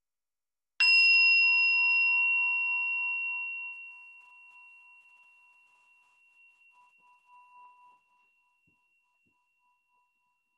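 A meditation bell struck once, about a second in, ringing in a few clear high tones that slowly fade away over several seconds. It marks the close of a period of silent prayer.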